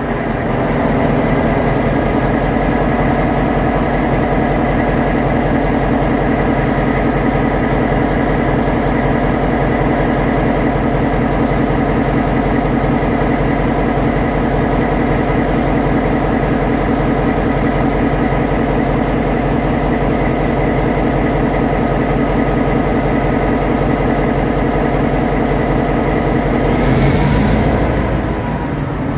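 Non-turbocharged EMD SD38-2 diesel-electric locomotive's diesel engine running steadily, an even, rapidly pulsing note with no turbo whine. A short hiss comes through near the end.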